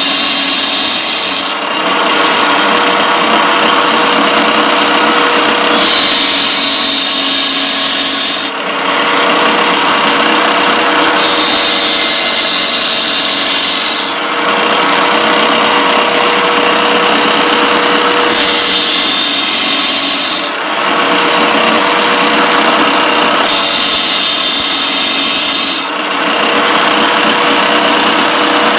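Small tile cutter's motor running steadily while its diamond wheel grinds the carbide teeth of a table saw blade. The harsh, high grinding comes in passes of about two seconds, one for each tooth, five times over, roughly every five to six seconds, with a short dip in level as each pass ends.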